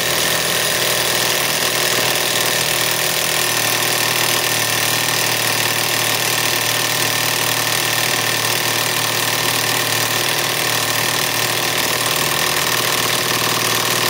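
Kobalt KIW1240 24-volt mid-torque cordless impact wrench hammering steadily in reverse on a 1-1/2 inch nut, a fast unbroken rattle of impacts with no letup: the nut is not breaking loose.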